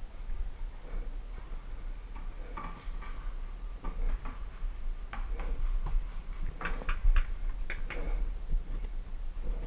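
Scattered paintball marker shots: irregular sharp pops, coming thicker from about five seconds in, over a steady low rumble.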